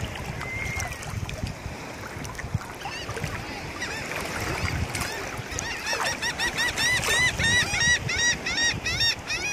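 A bird calling in a rapid run of repeated arched notes, about five a second, starting about six seconds in.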